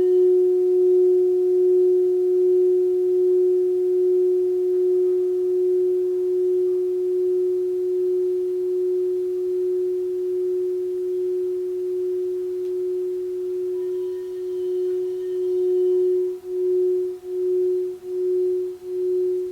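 Crystal singing bowl sounding one steady, sustained pure tone with faint overtones, its volume wavering slowly. In the last few seconds the tone pulses regularly, about one and a half times a second.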